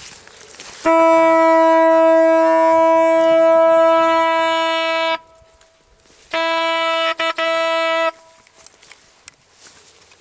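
Hunting horn blown by a hunter as a hunting signal: one long steady note of about four seconds, then after a short pause a second, shorter blast broken twice into short toots.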